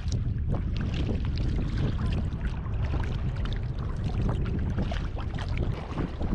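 Sea kayak paddled through wind-driven chop: water splashing and slapping against the hull and paddle, under a heavy low rumble of wind buffeting the microphone.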